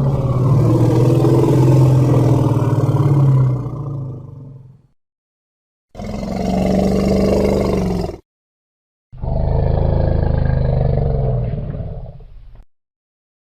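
Elephant growls and bellows used as a monster sound effect: three separate calls with dead silence between them, the first about five seconds long on a steady low pitch, then a shorter one of about two seconds and one of about three and a half seconds.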